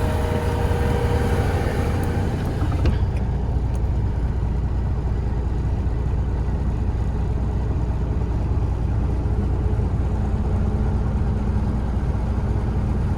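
Combine harvester running steadily while cutting wheat: a continuous low engine rumble. The higher hiss drops away about three seconds in, and a steady hum joins near the end.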